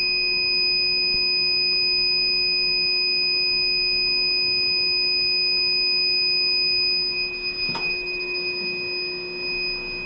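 Inficon Gas-Mate combustible gas leak detector sounding a steady high-pitched electronic tone while it warms up after being switched on, before it settles into its ready beep; the technician guesses it is going through a start-up purge. It gets a little quieter about seven seconds in, and there is a single short knock just before eight seconds.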